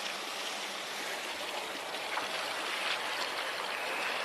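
Steady rushing hiss of water, even and unbroken.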